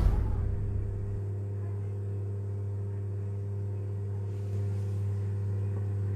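Steady low electrical hum, with the fading tail of a whoosh sound effect in the first second.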